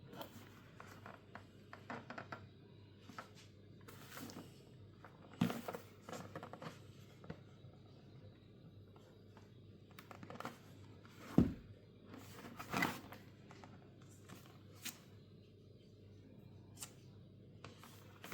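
Scattered handling noises: short clicks, knocks and rustles of objects being moved, with a louder knock near the middle.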